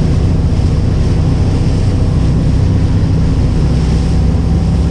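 Boat engine running steadily under way, with water rushing past the hull and wind buffeting the microphone.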